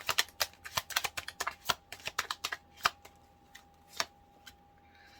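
Tarot cards being shuffled by hand: a quick run of flicking snaps that thins out after about three seconds and stops about four seconds in.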